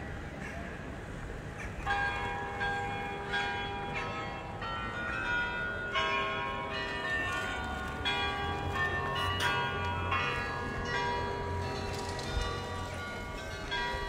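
Church bells ringing out, several bells of different pitch struck one after another, each strike roughly half a second to a second apart with its tone hanging on. The ringing starts about two seconds in.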